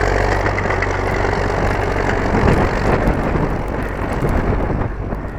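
Engine of snow-clearing machinery running steadily, its low hum fading after about three seconds, under a loud rushing noise.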